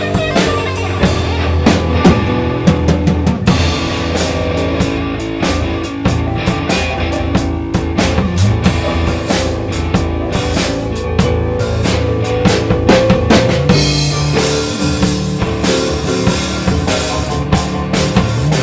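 Live band jamming: a drum kit plays a steady beat under keyboard and guitar.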